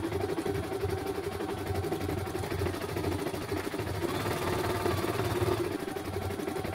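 CNY E900 computerized embroidery machine stitching out a design, a fast, steady needle rattle, sped up to double speed. The sound turns a little brighter for a moment about four seconds in.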